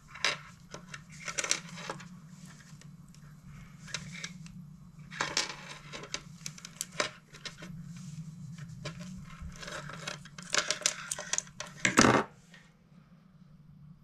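Close handling sounds of a Palomar knot in fishing shock leader being pulled tight on a metal snap held in pliers: scattered small metallic clicks and rustles of line, more frequent about ten seconds in, over a steady low hum.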